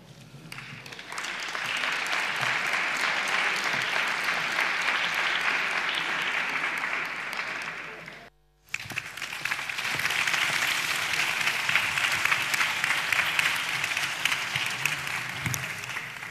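A large audience applauding steadily. The applause drops out abruptly for about half a second after eight seconds, resumes, and tails off near the end.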